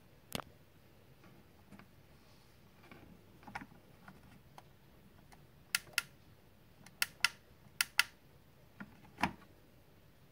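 Sharp little plastic clicks, several coming in quick pairs, as the switch on a 1:24 scale model police car is pressed to work its lights.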